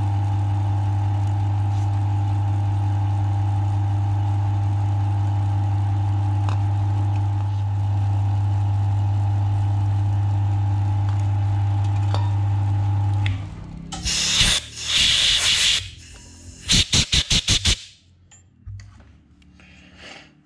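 Milling machine spindle running with a steady hum while a tool cuts a 3/16-inch hole into an engine piston; the machine stops about 13 seconds in. After it stop come a couple of seconds of loud hissing and then a rapid run of short hissing puffs.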